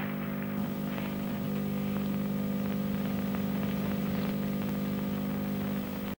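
Steady electronic hum made of several held low tones, with a layer of static hiss and crackle over it, cutting off abruptly at the end.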